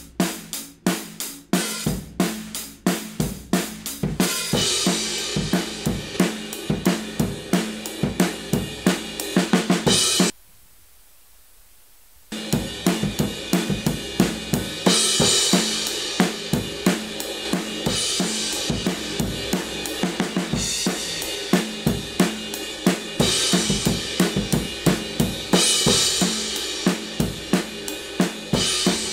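A mixed drum track with kick, snare, hi-hats and cymbals plays back through a drum-bus compressor and saturation plugin. It cuts out for about two seconds near the middle, then picks up again, with a brighter cymbal wash every few seconds.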